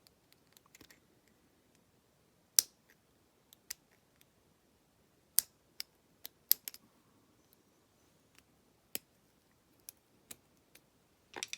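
A dozen or so sharp, irregularly spaced clicks of a small metal tool and C-clip against a plastic lockout padlock as the C-clip on its lock cylinder is worked by hand.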